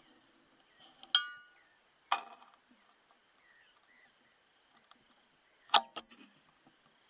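A few sharp clinks and knocks, some with a short metallic ring; the loudest comes near the end, two close together. A faint steady high hiss runs beneath them.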